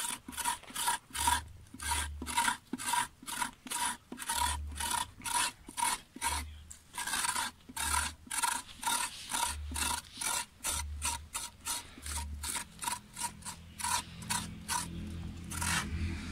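A hand scraper rasping the inside wall of a maguey's hollowed heart in quick repeated strokes, about two to three a second, stopping shortly before the end. This is the raspado, which scrapes the cavity walls so the aguamiel seeps out to be collected.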